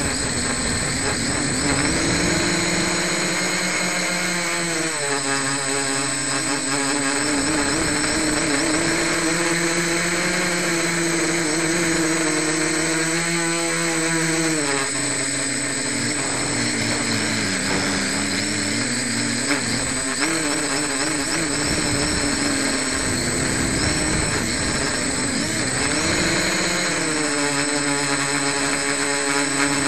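Home-built quadcopter's electric motors and propellers whining in flight, heard up close from a camera on the quad itself; the pitch rises and falls several times as the throttle changes. The propellers are not yet balanced. A steady high-pitched tone runs underneath.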